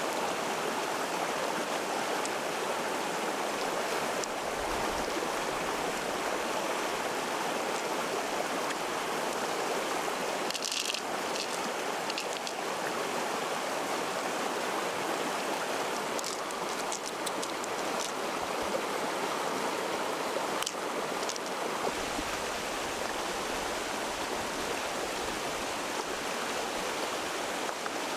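Steady rush of running water, with a few faint clicks about a third of the way in and again after the middle.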